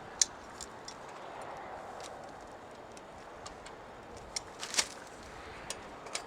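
Scattered sharp clicks and taps from handling and working the shed's steel frame tubes, straightening a slightly crushed tube end so it fits; the loudest click comes about a quarter second in, and several come close together near five seconds.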